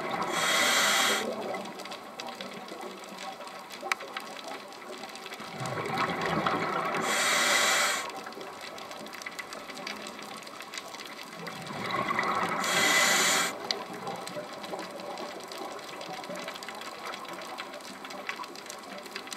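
Scuba diver breathing through a regulator underwater: three breaths about six seconds apart, each a rush of bubbling and hissing that ends in a bright hiss of about a second, with a steady watery noise between breaths.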